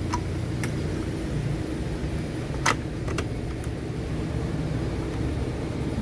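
A few sharp plastic clicks as a new washing-machine water-level pressure sensor is fitted into its mount, the loudest a little under halfway through, over a steady low background rumble.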